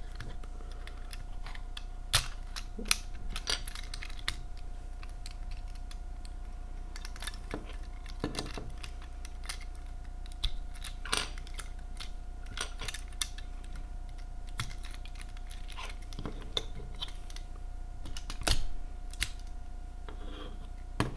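Plastic clicks and snaps of a Transformers Cybertron Overhaul action figure being transformed by hand, as its parts and ratchet joints are moved and clicked into place at irregular intervals. A faint steady hum runs underneath.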